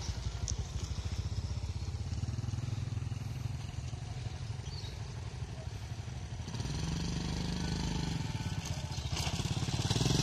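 Small motorcycle engine running with a fast, even putter, growing louder from about six and a half seconds in as a motorcycle approaches.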